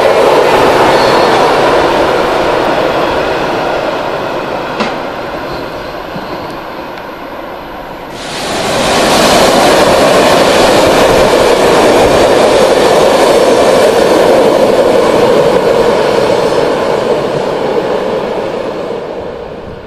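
A BLS electric multiple unit running past, its wheel and rail noise fading over several seconds, with a single click about five seconds in. About eight seconds in, the sound jumps to a red electric locomotive hauling passenger carriages, running past with steady wheel noise that fades near the end.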